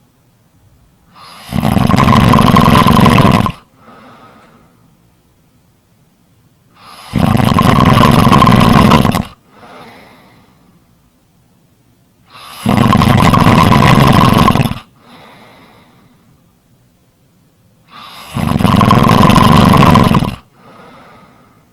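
Snoring: four long, loud snores about every five and a half seconds, each followed by a short, much softer breath sound.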